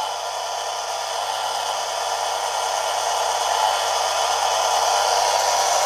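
Manson miniature lathe running: its open electric motor and cooling fan drive the belt, step pulley and gearbox in a steady, slightly noisy whir that grows a little louder, with the lead screw moving the carriage under power feed.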